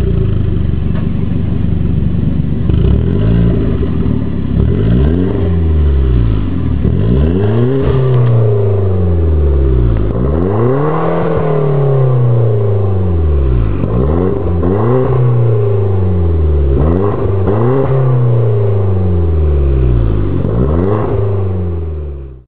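Hyundai Genesis 3.8-litre V6 exhaust through an HKS Legamax Premium cat-back system, idling for a few seconds and then revved over and over, each rev rising and falling about every two seconds.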